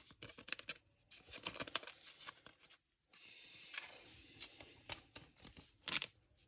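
Faint handling noise of Topps Chrome trading cards being flipped and slid against one another in the hands: quick irregular clicks and rustles, with a louder cluster of clicks about six seconds in.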